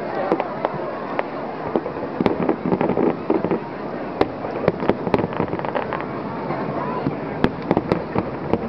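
Aerial fireworks display going off: a dense, continuous run of pops and bangs, with several sharper, louder reports scattered through.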